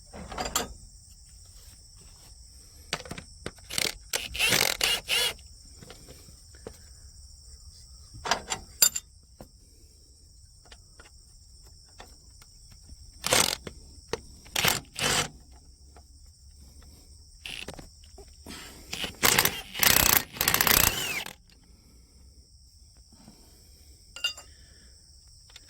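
Irregular short bouts of scraping, rustling and clattering, with one sharp click, over a steady high-pitched drone of insects.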